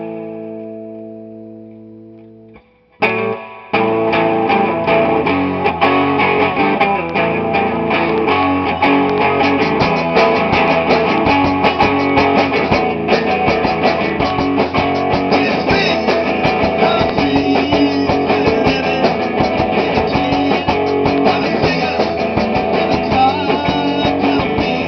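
Rock band playing in rehearsal. An electric guitar chord rings and fades out, another is struck about three seconds in, and then the full band comes in together with guitar and bass over a steady run of sharp hits.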